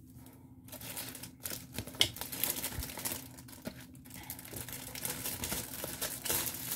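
Clear plastic packaging sleeve crinkling and rustling as it is handled and opened, starting about a second in, with a sharp click about two seconds in.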